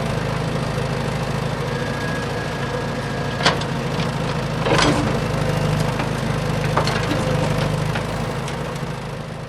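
A small engine running steadily at idle, with a few sharp knocks or clicks, the loudest about three and a half and five seconds in.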